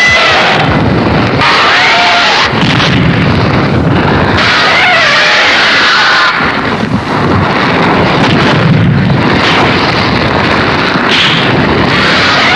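Monster roar sound effect of the kaiju Terrosaurus, the same sound used for Nerogiras in Fireman: harsh, noisy roaring over a heavy low rumble, with rising-and-falling screeching cries several times.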